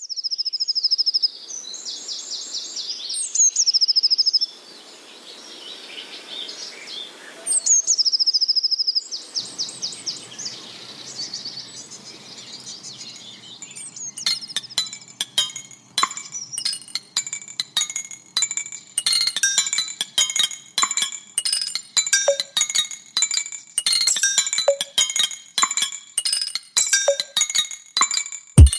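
Songbirds singing rapid high trills in short separate bursts over faint outdoor ambience. About halfway through, music with a steady beat of bell-like chiming notes starts and takes over.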